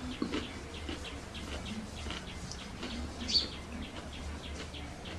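Small birds chirping repeatedly, several short high chirps a second, the sharpest a little past three seconds in. Under them are faint wet mouth and water sounds from eating out of a basin of water.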